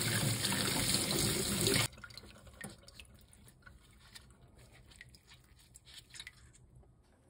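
Kitchen tap running onto raw pork in a stainless steel bowl, a loud steady rush of water that stops abruptly about two seconds in. After it, faint drips and small wet sounds as gloved hands handle the rinsed meat.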